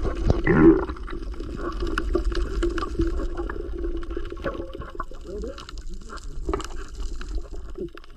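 Underwater sound heard through the camera: gurgling water movement with a scattered crackle of small clicks and a steady low hum. A louder bubbly gush sweeps down in pitch about half a second in.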